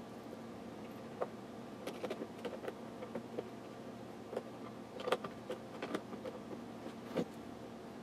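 Small screwdriver tightening the screws on a plastic inkjet printhead, with scattered light clicks, ticks and handling taps. The loudest clicks come about five seconds in and again near seven.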